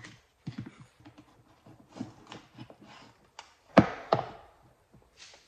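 Food containers being handled and set down on a metal kitchen counter: a wooden bento box is closed and a plastic food container is put on it, giving light taps and thunks, with two louder knocks close together a little before four seconds in.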